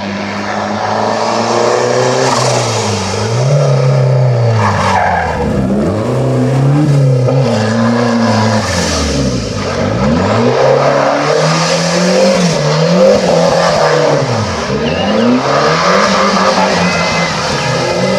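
Ford Sierra rally car's engine revving hard and dropping back over and over, every second or two, as it is driven flat out through tight corners.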